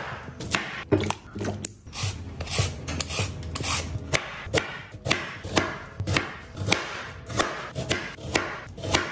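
Chef's knife chopping raw potato and then carrot on a wooden cutting board: a steady run of sharp cuts, two or three a second, each ending in a knock of the blade on the board.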